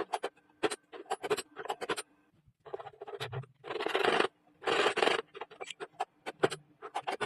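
Metal parts of a homemade door lock being worked: a run of quick clicks and knocks, with two longer scrapes of about half a second each around the middle.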